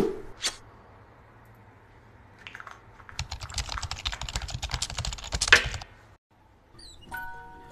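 Fingernails tapping and clicking quickly on a small cosmetic jar for about two and a half seconds, ending with a louder click. A sharp click comes right at the start.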